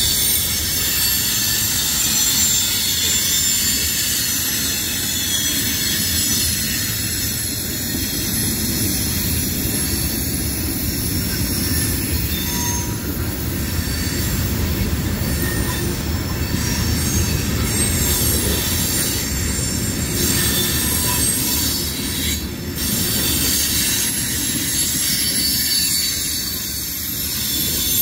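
Loaded covered hopper cars of a CSX freight train rolling past, their wheels screeching on the rails: several high, steady squealing tones over a continuous low rumble of wheels and cars.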